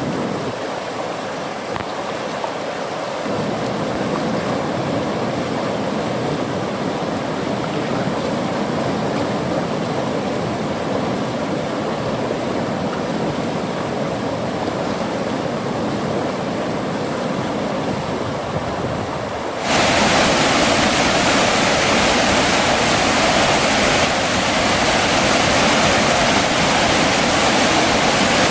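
Mountain valley stream rushing steadily over rocks. About two-thirds of the way through, the rush jumps suddenly louder and brighter, as a stronger, nearer stretch of rapids takes over.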